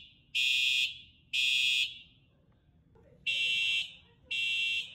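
Building fire alarm sounding its evacuation signal: harsh, high, buzzing half-second blasts about a second apart, two, then a pause of about a second and a half, then two more, in the temporal-three pattern. It is going off with no fire.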